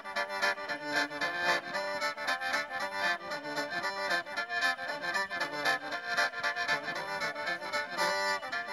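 Khaen, the Isan bamboo free-reed mouth organ, playing a fast mor lam melody over a quick steady beat.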